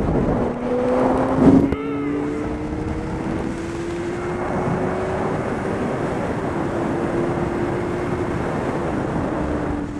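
Honda CBR600RR's inline-four engine running under way, its note climbing slowly as the motorcycle picks up speed, with wind rushing over the helmet microphone. About one and a half seconds in there is a brief louder moment and the engine note steps down before it starts its slow climb.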